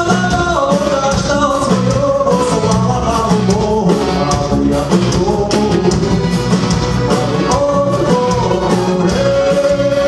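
Rock band with a string section playing live: vocals over electric guitar, drums and strings.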